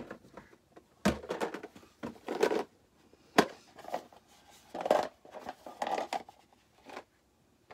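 Hard plastic storage box being handled: a series of sharp plastic clicks and knocks, with rustling and shifting sounds between them. The loudest click comes a little over three seconds in.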